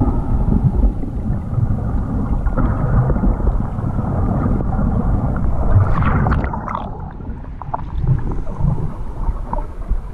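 Underwater rumble and rush of moving water picked up by an action camera in its waterproof housing, stirred by a snorkeler's swimming movements. A brief burst of higher-pitched noise comes about six seconds in.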